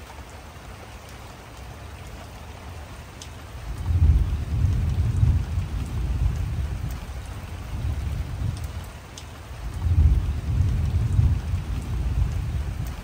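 Heavy rain falling steadily during a night thunderstorm, with two long low rumbles of thunder, one about four seconds in and another about ten seconds in.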